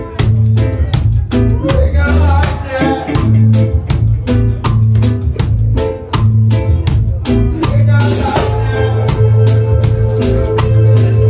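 A live reggae band playing, with a heavy bass line and drums under evenly repeating short guitar chops. A held chord of steady tones comes in about eight seconds in.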